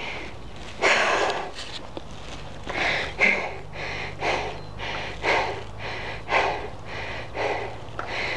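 A person panting hard, with heavy breaths close to the microphone about once a second.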